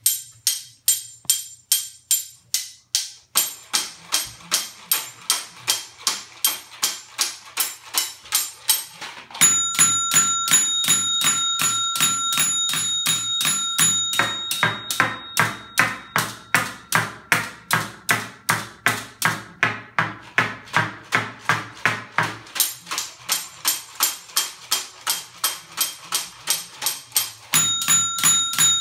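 Percussion music: a steady beat of sharp taps, about three a second, joined by sustained ringing tones about ten seconds in and again near the end.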